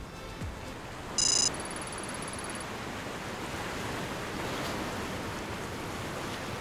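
Sound-design effects for an animated map graphic: a short, loud electronic chirp about a second in, then about a second of rapid faint digital ticking. Underneath is a steady rushing wind-and-sea ambience that swells slightly in the middle.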